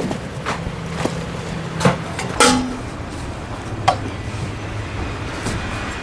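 Solo Stove Titan stainless-steel wood stove being handled and set down: a few knocks and short metallic clinks with a brief ring as the parts touch, the clearest two about two and a half and four seconds in. A steady low machine hum runs underneath.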